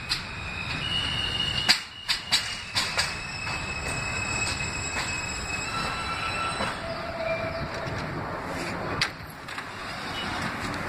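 New York City subway train braking into a station: a steady rumble with thin wheel and brake squeals, and a quick run of clacks over the rail joints about two to three seconds in. The train comes to a stop, and its doors open near the end.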